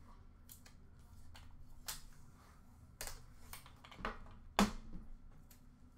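Clear plastic shrink-wrap crinkling and crackling as it is peeled off a hockey card box, in irregular sharp clicks and crackles, the loudest about four and a half seconds in.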